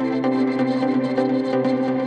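Background music: soft ambient instrumental with sustained tones and plucked notes.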